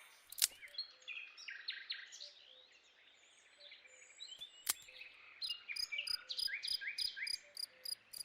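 Faint birds chirping, joined about five seconds in by a fast, even chirping rhythm of crickets, like a countryside ambience. Two sharp clicks, one near the start and one midway.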